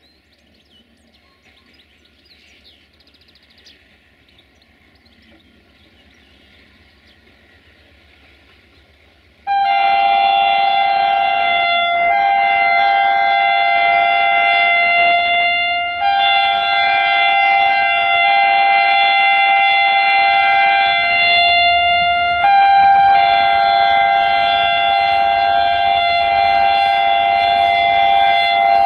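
Multi-tone air horn of a GM Class 64 diesel locomotive, sounded in loud, long held blasts one after another with only brief breaks between them. It starts suddenly about a third of the way in, after faint background.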